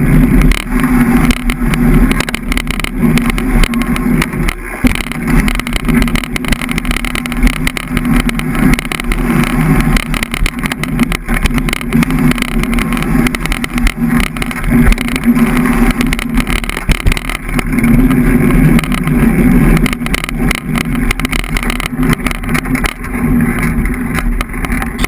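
Rigid fat bike's wide tyres rolling fast over a dirt singletrack, a steady loud rumble with frequent small knocks and rattles as the bike and mounted camera take the bumps.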